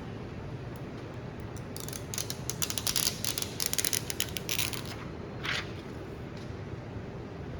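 Plastic adhesive film and lamination mold parts being handled, making a dense run of crackling clicks for about three seconds, with one more crackle shortly after, over a steady low hum.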